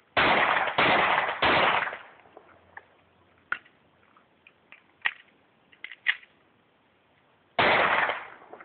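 Handgun fired four times: three shots about two-thirds of a second apart, then one more shot about six seconds later. Each shot is loud and sharp with a short echoing tail.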